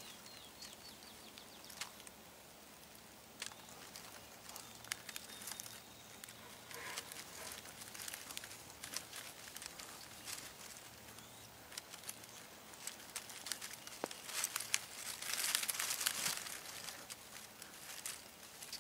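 Outdoor rustling and crackling, many light irregular clicks like dry leaves or brush being disturbed, with a louder stretch of rustling about fifteen seconds in.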